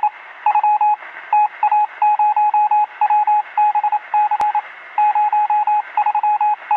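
Morse code (CW) heard over a radio: a single mid-pitched beep keyed in short dots and longer dashes, over a steady hiss.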